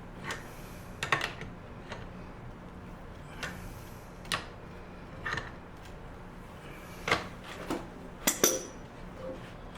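Irregular metallic clinks and knocks from hand tools and parts being handled during a bicycle bottom bracket overhaul, about ten strikes. The loudest come near the end.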